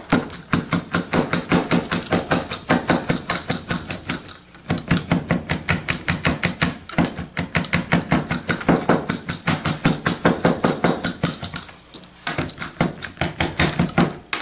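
Chef's knife rapidly chopping raw chicken on a plastic cutting board, hand-mincing it: quick, even knocks of the blade against the board, about five a second, pausing briefly twice.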